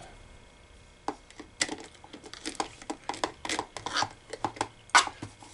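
Screwdriver and fingers clicking and tapping against a coin hopper's wire terminal and its plastic case as a terminal screw is snugged down. An irregular run of small, sharp clicks starts about a second in.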